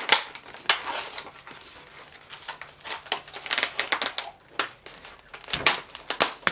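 A surprise-toy egg shell being knocked and cracked open by hand: irregular taps and crackles, with a louder cluster and a dull thump near the end.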